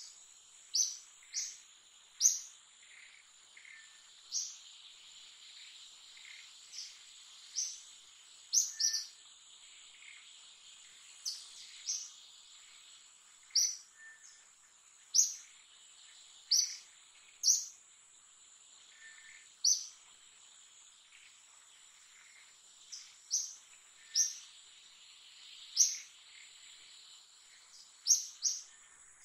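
Wild birds giving short, sharp, high chirps at irregular intervals of a second or two, over a steady high-pitched insect drone.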